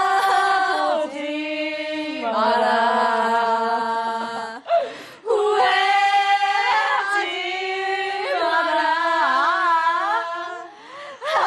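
A group of women singing a Korean song together in unison, drawing out long held notes. There is a short break between lines about five seconds in.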